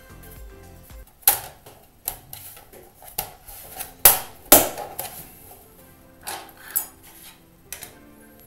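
Plastic bottom cover of a Casper Nirvana C500 laptop being pressed back onto the case, with about eight sharp clicks and knocks as its clips snap into place.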